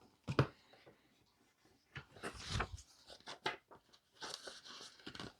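A light knock, then scattered taps and paper rustling from paper money and challenge sheets being handled on a table.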